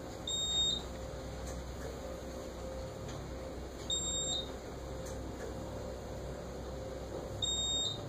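Elevator door-nudging warning from a modernized 1974 Dover traction elevator: a high beep, each about half a second long and stepping up in pitch at its end, sounds three times about three and a half seconds apart, over a steady low hum. It is the alert an elevator gives when its doors have been held open too long, before it forces them closed.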